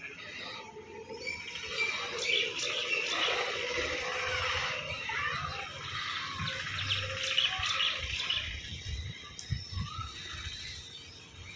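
Many small birds chirping and twittering together in a dense chorus, loudest through the middle and thinning out near the end, with a few soft low thumps underneath.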